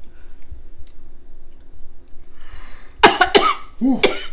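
A woman coughing hard several times in quick succession, starting about three seconds in: a cough brought on by a mouthful of extremely spicy noodles.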